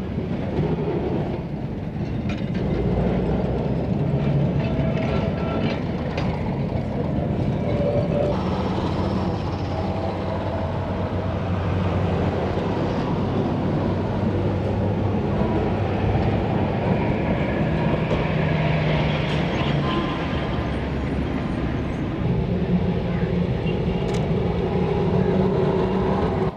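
Calcutta electric tram running on street track: steel wheels rumbling on the rails with a steady low hum. The sound cuts off abruptly at the end.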